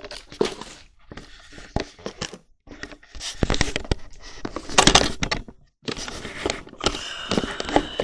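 Handling noise from a handheld camera being set down and adjusted: irregular knocks, clicks and rustling against its microphone, loudest about five seconds in.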